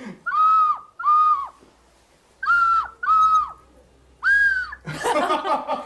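Ocarina playing five short notes in steps: two, two a little higher, then one higher still, each sagging in pitch as the breath runs out. Laughter and chatter break in near the end.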